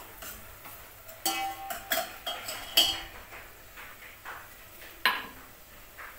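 Stainless-steel kitchen utensils clinking: a handful of sharp metal knocks with short ringing between about one and three seconds in, and one more near five seconds.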